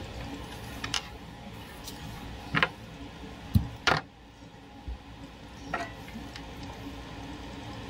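Handling noise on a desk: about six scattered clicks and light knocks, the loudest about four seconds in, over a low steady hum.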